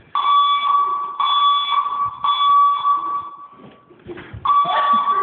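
Building fire alarm sounding a steady high-pitched tone in pulses of about a second, three in a row, then a short break before it sounds again.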